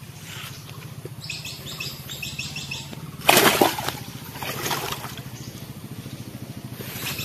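A bird chirping a rapid run of short high notes for about a second and a half. Then a loud splash about three seconds in as the hooked fish thrashes at the surface, with a smaller splash a second or so later.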